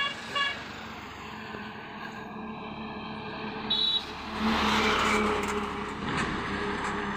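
Goods truck passing close by: a horn toots briefly at the start, a short high beep sounds just before four seconds, then the truck's diesel engine and tyre noise swell loudly as it goes past.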